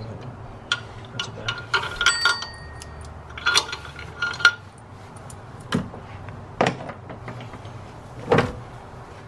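Metal clinks and knocks of hand tools and parts being handled in a car's engine bay, some with a brief ring, irregular rather than rhythmic. Three sharper knocks come in the second half.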